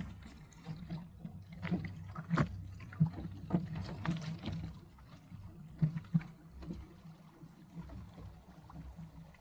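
Small waves slapping and splashing irregularly against the hull of a 1965 Sunfish sailboat under way, over a steady low rumble.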